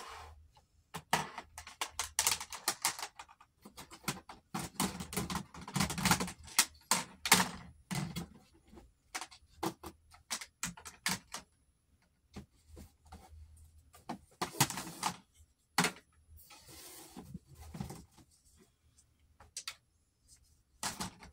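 Makeup palettes being handled and sorted out of a vanity drawer: irregular clicking, tapping and clattering as they are picked up, set down and stacked, busiest in the first half and sparser later.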